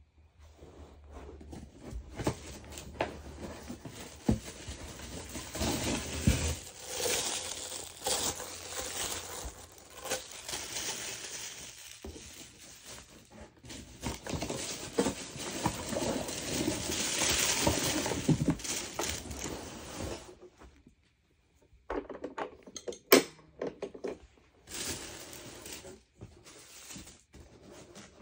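Unpacking a cardboard box: packing paper and wrapping rustling and crinkling, with cardboard scraping and hard parts clacking as they are lifted out and set down. The rustling pauses about two-thirds of the way through, and a sharp clack a few seconds before the end is the loudest sound.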